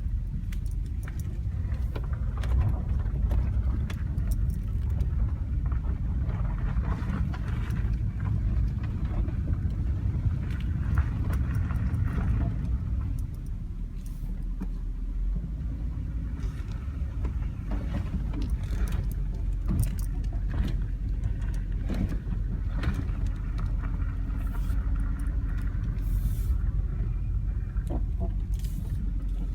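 Mercedes-Benz W140 S-Class on the move: a steady low road-and-drive rumble with short creaks and clicks scattered through it. These are the squeaks the owner is trying to capture.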